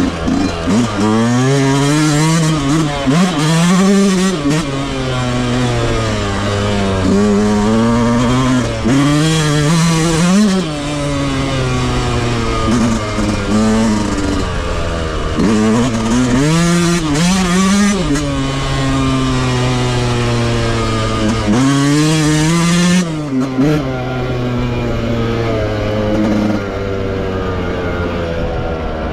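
Yamaha YZ125 two-stroke motocross bike on stock exhaust being ridden hard, its revs climbing and dropping back again and again as it accelerates and shifts, settling into a steadier, lower drone near the end.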